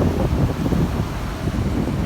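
Gusty wind blowing across the microphone, with beach surf behind it.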